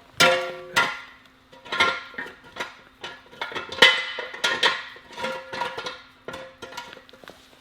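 A series of irregular metallic clanks and knocks, a dozen or more, each ringing briefly: steel parts or tools being handled and struck.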